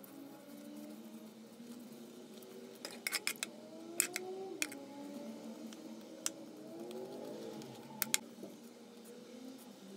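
A spoon clinking against a bowl in sharp ticks: a quick cluster about three seconds in, the loudest single tick at about four seconds, and a few more later, as a egg-and-milk mixture is spooned over layered yufka pastry. Faint pitched tones slide up and down underneath.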